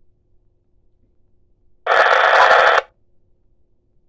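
Radio scanner speaker playing back a recorded narrow-band FM transmission that carries no voice, only a burst of radio hiss about a second long, about two seconds in. Before and after it, near silence with a faint steady hum.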